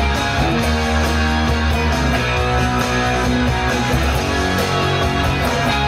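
Les Paul-style electric guitar played over a rock backing track, with a steady beat and bass underneath.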